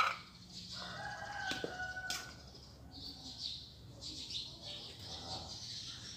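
A rooster crowing once, a single held call of about a second starting roughly a second in.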